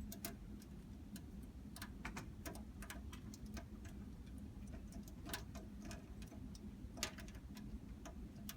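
Irregular small metal clicks and ticks of a lock pick being worked inside a lock, some sharper than others, with a steady low hum underneath.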